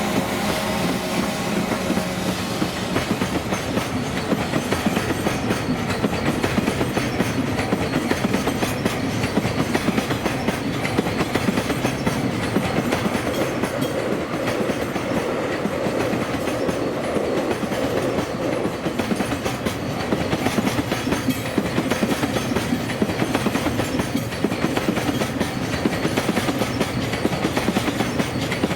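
Electric passenger train running past over a multi-track level crossing, its wheels clattering steadily over the rail joints. A steady hum fades away in the first two or three seconds.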